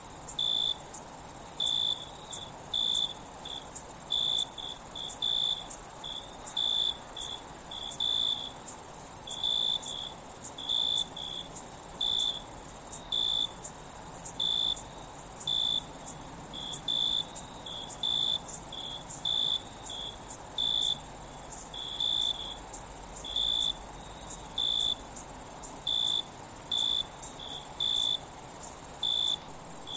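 Night insect chorus: a steady high-pitched trill, with crickets chirping over it in short chirps that repeat irregularly, about one or two a second.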